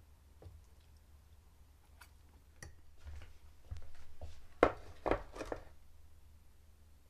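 Metal springform pan set down on a table: one sharp knock about four and a half seconds in, followed by two lighter knocks and scrapes as it is settled, after a few faint clicks and handling sounds.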